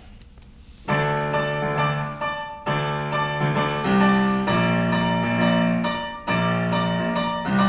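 A keyboard plays the song's instrumental introduction: held chords come in about a second in and change every second or two.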